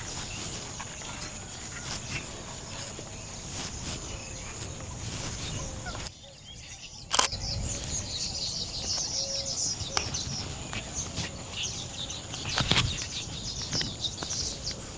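Open-air ambience with a low rumble and a steady high hiss. About halfway through there is a sharp click, and after it comes rapid, high-pitched bird chirping that keeps going.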